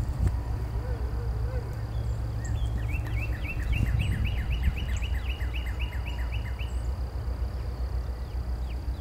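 Low steady drone of a distant EMD GP9 diesel locomotive approaching. Above it, a songbird sings a fast run of repeated notes, about four a second, from about three seconds in to nearly seven, with other birds chirping.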